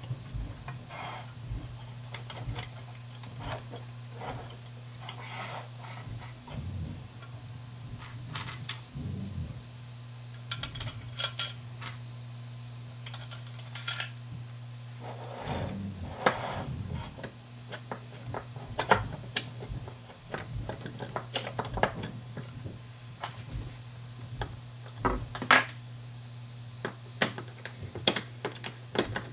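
Small plastic and aluminium curtain-track parts being handled, clicked together and set down on a wooden table: scattered clicks, taps and light clatter, with a steady low hum underneath.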